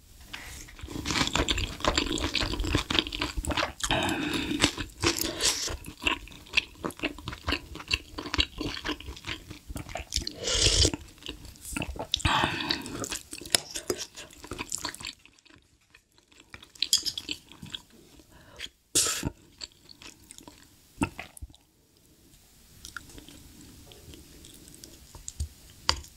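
Close-miked chewing of spicy beef short-rib soup with rice, dense and loud at first, then quieter from about fifteen seconds in with a few sharp clicks.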